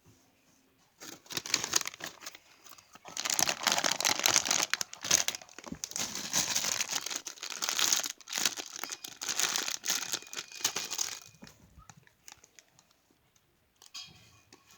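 Plastic packaging crinkling and rustling as it is handled. The sound starts about a second in, is busiest through the middle, and dies away a few seconds before the end.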